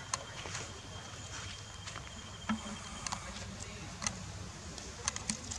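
Outdoor ambience under trees: a low steady rumble with scattered sharp clicks and light cracks, and a thin steady high tone during roughly the first three seconds.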